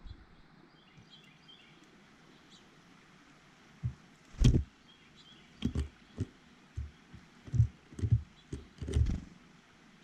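Small birds at a feeder: a short run of high chirps about a second in, then from about four seconds on a series of irregular low thumps and knocks.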